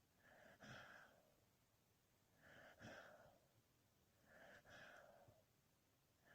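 A sleeping dog breathing slowly and faintly, three breaths about two seconds apart.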